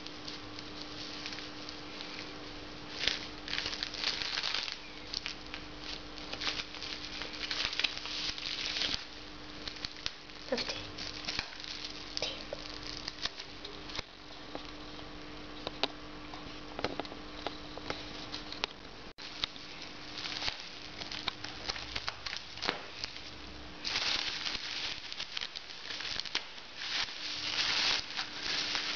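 Plastic packing material and bubble wrap handled and unwrapped by hand, crinkling and rustling in irregular bursts that are busiest near the start and toward the end.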